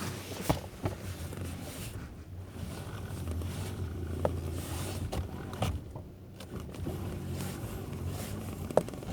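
Chevrolet Cruze with its engine running, a steady low hum, with several short clicks and knocks as the steering is worked: the steering noise that the owner is trying to trace.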